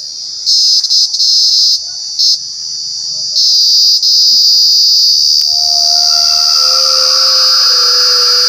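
A loud, steady, shrill daytime insect chorus, the jhinjhi poka, broken by a few brief gaps in the first few seconds. From about halfway a lower droning tone joins in, stepping down in pitch.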